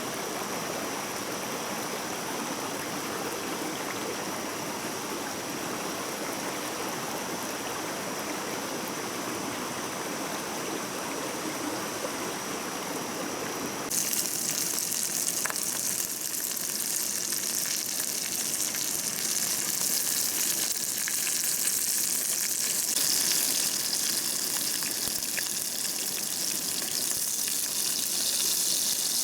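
Stream water rushing steadily. About halfway through it switches suddenly to a louder, hissier rush that carries on.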